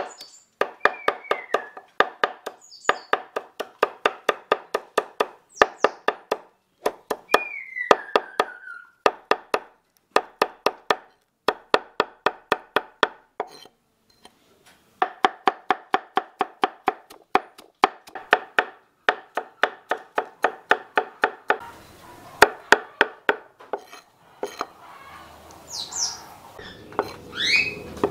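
A broad kitchen knife mincing shallots, garlic, galangal and chillies on a wooden cutting board for a spice paste: rapid knocking strokes of the blade on the board in long runs, with a brief pause about halfway through.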